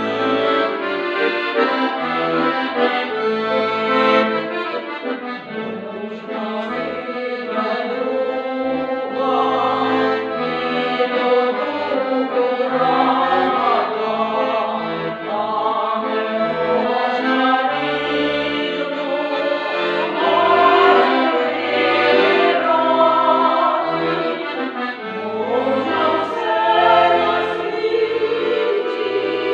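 Accordion playing a slow folk tune, its bass chords sounding in short repeated notes underneath. Partway through, a mixed choir of voices sings along with it.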